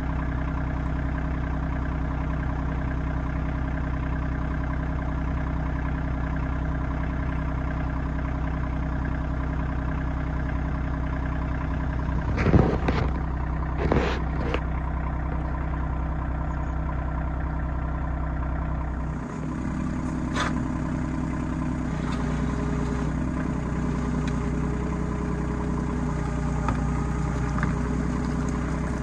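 RK25 compact tractor's diesel engine running steadily, with two loud knocks about twelve and fourteen seconds in.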